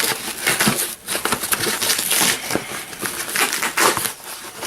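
Cardboard shipping box being torn and crumpled by hand: a run of irregular rasping rips and crackles.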